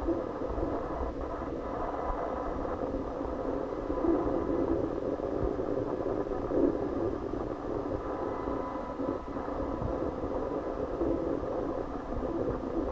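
Steady muffled rumble with faint steady hum tones and a few soft knocks.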